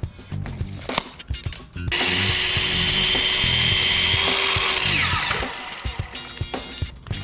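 An electric power tool runs at full speed for about three seconds, starting about two seconds in, then its motor winds down with a falling whine. Background music with a steady beat plays throughout.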